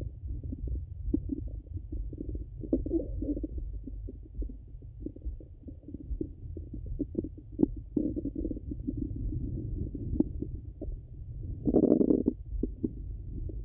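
Bowel sounds of a full stomach heard through a Littmann stethoscope: a low steady rumble with scattered short gurgles and clicks, and a louder gurgle about twelve seconds in.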